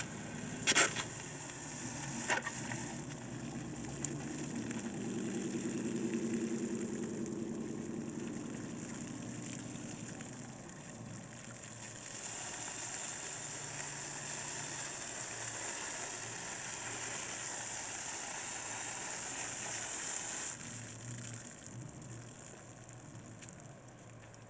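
Garden hose spraying water into a window air conditioner, rinsing acid coil cleaner out of its coils. Two sharp clicks near the start, then a steady rushing hiss of spray that turns brighter and harsher about halfway through and stops abruptly a few seconds before the end.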